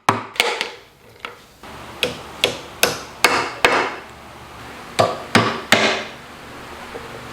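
Hammer blows: a run of sharp strikes about 0.4 s apart, each ringing briefly, pausing a little past halfway and then resuming with three more.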